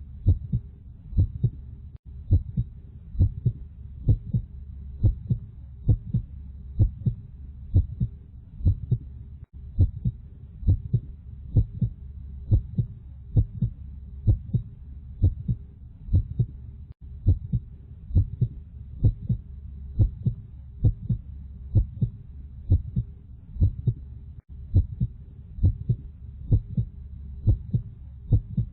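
Heartbeat sound effect: steady lub-dub double thumps, about one beat a second, over a low steady hum.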